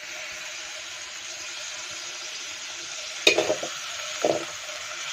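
Food sizzling steadily in hot oil in an iron kadai, with two short louder sounds about three and four seconds in.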